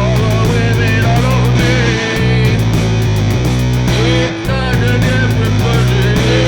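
Loud rock music with distorted guitar, a pulsing bass line and a steady drumbeat, with a wavering lead melody over it.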